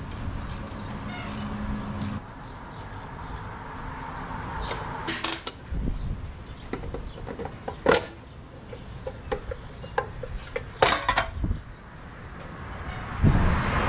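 Metal clicks, clanks and knocks as a hand tool works at an electric winch's steel cover and the cover is taken off, with the loudest clanks about eight seconds in and around eleven seconds.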